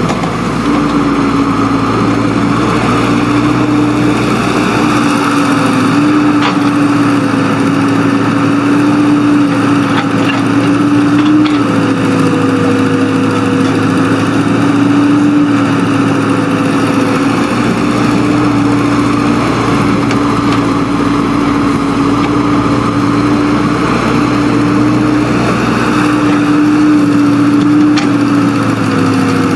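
Engine of working earthmoving machinery running steadily at a fairly constant speed, its pitch dipping slightly now and then.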